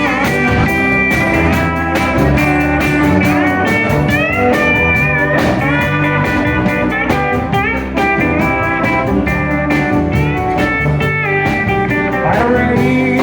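Live country band playing an instrumental intro on guitar, bass and drums, the lead guitar bending notes up several times over a steady beat.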